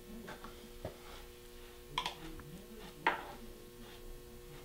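Faint handling sounds: a few light clicks and taps, about one a second, as hands and a tool work at the base of the antlers on a foam deer mannequin. A steady low hum runs underneath.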